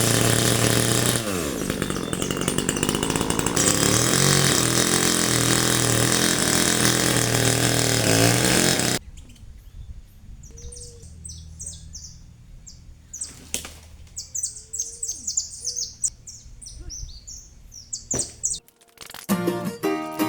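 Chainsaw engine running at high revs, dropping in pitch about a second in, then revving up and down before cutting off abruptly about halfway through. After that, birds chirp with a single sharp knock, and strummed guitar music starts near the end.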